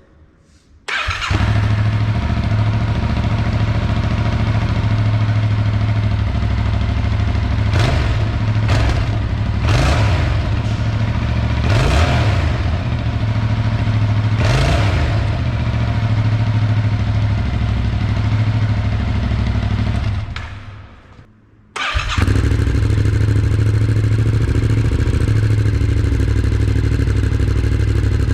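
2021 Yamaha MT-07's 689 cc parallel-twin engine through a Mivv GP Pro carbon exhaust. It starts about a second in, idles and is blipped about five times, then shuts off and runs down around twenty seconds in. It is restarted soon after and idles steadily.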